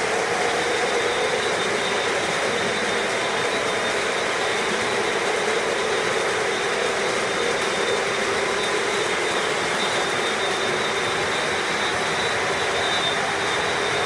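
Several O gauge three-rail model trains running together on the layout: a steady, unbroken rolling rumble of metal wheels on the track.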